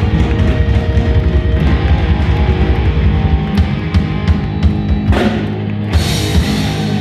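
Heavy metal band playing live: distorted electric guitars, bass and drum kit. The steady beat gives way to scattered drum hits and cymbal crashes over held chords in the last few seconds, the song's closing flourish.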